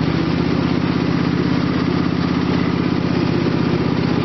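Repowered lawn tractor's small gasoline engine running steadily with an even, fast pulse.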